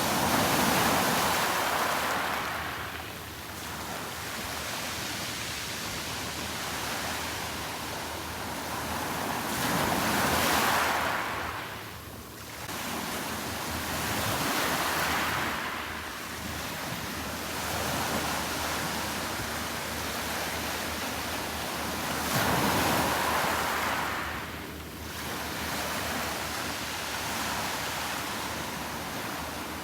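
Sea waves breaking on the shore, a steady wash with three bigger surges about ten to twelve seconds apart and smaller ones between. Some wind rumble on the microphone.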